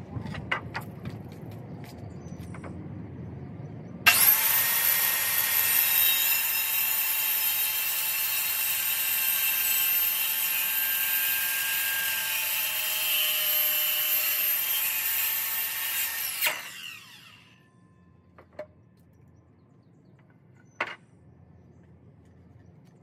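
Electric power tool running steadily with a high whine while working wood. It starts abruptly about four seconds in and shuts off after about twelve seconds, winding down briefly. A few knocks come before it starts.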